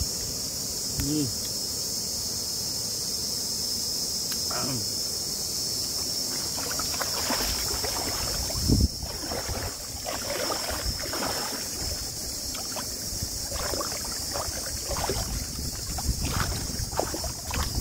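Snails being sucked and slurped out of their shells and chewed, in short irregular bursts, with a brief hum of enjoyment early on, over a steady high hiss. A single sharp knock about nine seconds in.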